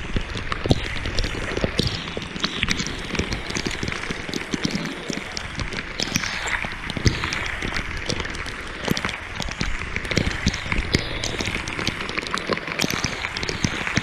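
Heavy hurricane rain pouring down onto floodwater, a steady hiss broken by many sharp drop hits close to the microphone.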